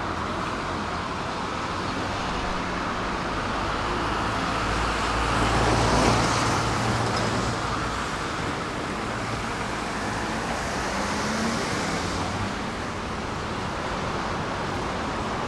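Steady road traffic on wet streets, with one vehicle passing closer and louder about six seconds in and another, quieter pass around eleven seconds.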